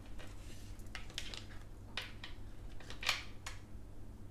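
Tarot cards being handled on a table: a string of short, sharp flicks and slides, the loudest about three seconds in.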